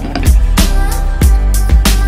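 Background music with a strong bass and a steady beat, about one and a half beats a second.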